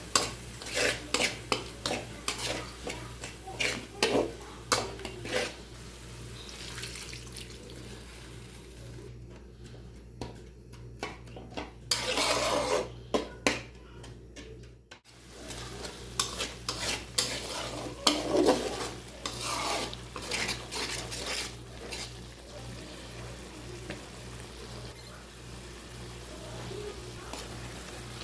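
A spatula stirring and scraping in a cooking pan, clinking against the metal again and again, over a faint sizzle of frying and a low steady hum.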